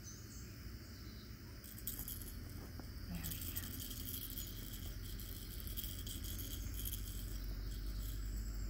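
Faint rustling and scuffling of puppies tumbling over plush toys on a mat, over a high hiss of outdoor insects that grows louder about three seconds in.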